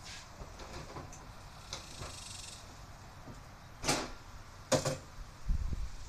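Hard objects being handled and set down: two sharp clattering knocks about a second apart, then a dull low thump.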